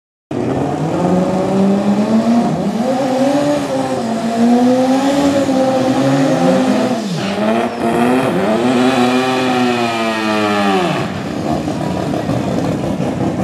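Turbocharged Toyota 3RZ 2.7-litre four-cylinder drag car engine revving up and down repeatedly. There is a long climb in revs a few seconds from the end, then it drops back to a lower, steadier run.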